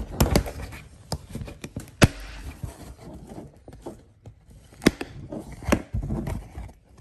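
Plastic mesh-pocket trim bracket being worked loose from a Ford Bronco door panel by hand: several sharp plastic snaps and knocks amid handling noise, as the drilled-out plastic welds give way.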